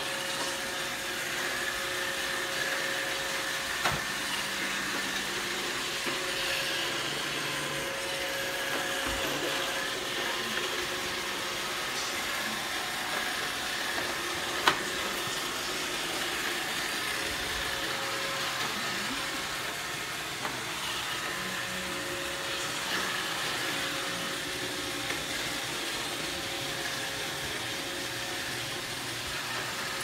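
iRobot Roomba robot vacuum running as it moves across the floor: a steady whirring hum with a thin whine, and one sharp click about halfway through.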